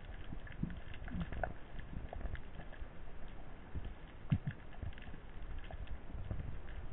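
Underwater ambience picked up by a camera in its housing: a steady low rumble of moving water with scattered irregular clicks and knocks, one sharper knock about four seconds in.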